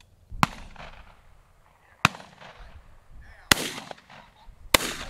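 Four shotgun shots at about a second and a half apart, each trailing off in an echo, as shooters fire at a flying pheasant.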